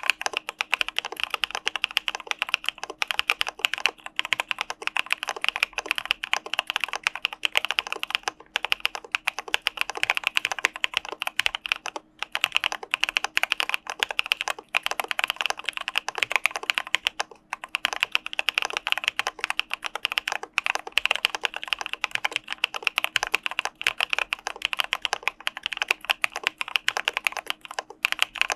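Fast, continuous typing on an Arisu Alice-layout mechanical keyboard fitted with CPSD (Cà Phê Sữa Đá) linear switches. There are brief pauses about 8, 12 and 17 seconds in.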